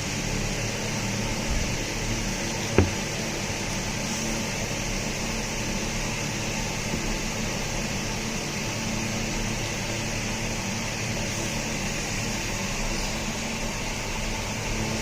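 Steady hiss with a low electrical hum underneath, and one sharp click about three seconds in.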